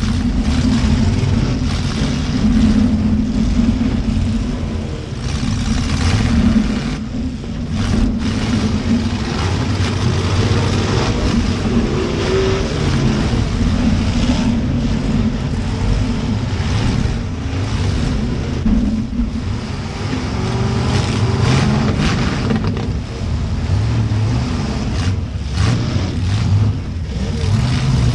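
Demolition derby car's V8 engine running loud and revving up and down, with a few brief bangs, about eight seconds in and again near the end.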